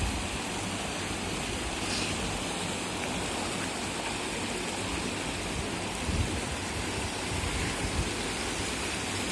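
Fast-flowing floodwater of a swollen river rushing past a concrete weir, a steady rushing noise.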